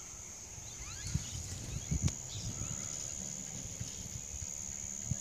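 Outdoor evening ambience: a steady high-pitched insect drone, a few faint rising bird chirps about a second in, and soft, irregular thumps of footsteps on the footpath.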